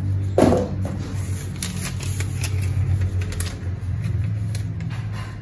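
Scattered crinkling and rustling of packaging being handled, loudest about half a second in, over a low steady hum that fades near the end.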